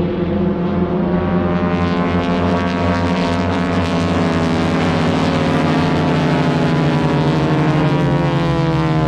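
Radial engines of a four-ship formation of North American T-6 Texan warbirds running in a loud, steady drone. The pitch falls in the second half as the formation passes over.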